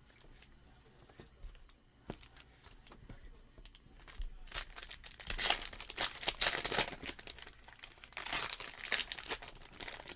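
Foil trading-card pack wrapper being torn open and crinkled by hand, in two loud bursts of crackling, one about halfway through and one near the end.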